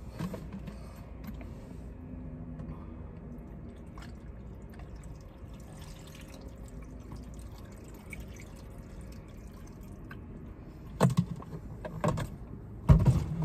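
Water poured from a plastic gallon jug into a cooking pot, running steadily for about ten seconds. Two loud knocks near the end.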